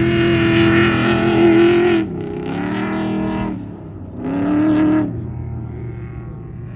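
An off-road race truck's engine at full throttle going by, cutting off sharply about two seconds in and then surging twice more before fading away.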